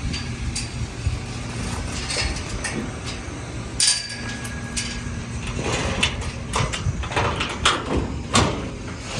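Engine running steadily, heard from inside a farm vehicle's cab, with scattered rattles and knocks that come thicker in the second half.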